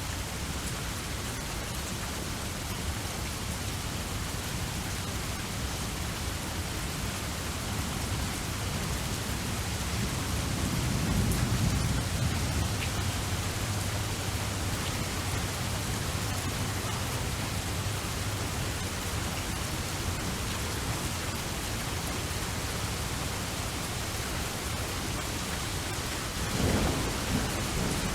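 Steady rain hissing, with low rolls of thunder: a long one swelling about a third of the way in and a shorter one near the end.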